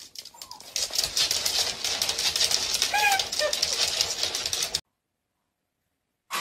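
Small dog's claws clicking rapidly on a laminate floor as it scrambles and dances about, with a few short squeaky cries about half a second in and around three seconds in. The clicking cuts off suddenly just before five seconds.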